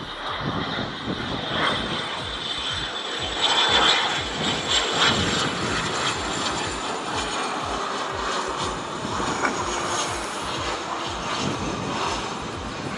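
Cessna 550 Citation II business jet flying past low, its twin Pratt & Whitney Canada JT15D turbofans giving a high whine over a broad jet rush. The whine slowly falls in pitch as the jet goes by, and the sound is loudest about four seconds in.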